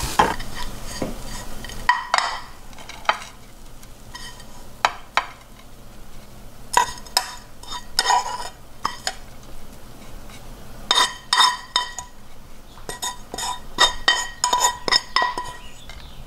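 Metal spoon scraping and knocking against a nonstick frying pan as fried dried baby shrimp are stirred and then scraped out onto a platter: a series of sharp clinks and scrapes with short ringing. A faint sizzle from the cooling pan dies away about two seconds in.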